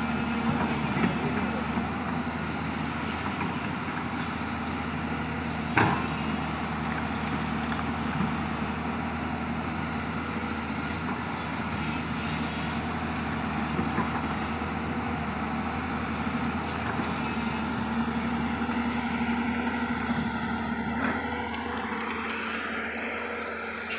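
Large excavator's diesel engine running steadily under working load, with a single sharp knock about six seconds in and a few lighter clicks.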